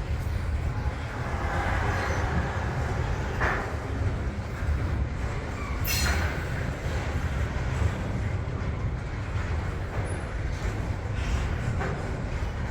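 Canadian National double-stack freight train rolling past at low speed: a steady low rumble of wheels and cars, with a few brief metallic clanks, the sharpest about six seconds in.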